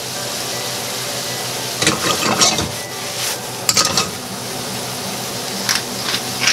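Broccoli with garlic and shallots sizzling steadily in a stainless steel skillet on a gas burner. A few sharp metal clinks and scrapes about two seconds in, near four seconds and near the end as the pan is moved on the grate.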